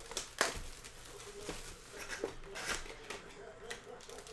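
Trading card box and its wrapping being handled and torn open: rustling and tearing with a few sharp knocks, the loudest about half a second in.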